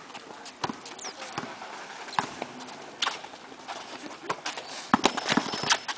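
Basketball bouncing on an asphalt court: irregular sharp thuds as it is dribbled, with a couple of short high squeaks near the end.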